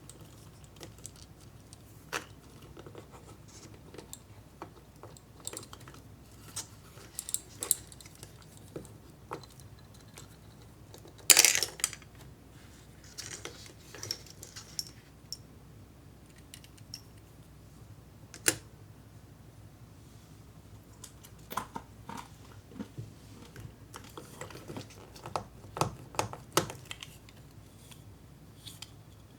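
Scattered light clicks and taps of small plastic kit parts and hard ramune candies being handled, with one louder clatter about eleven seconds in.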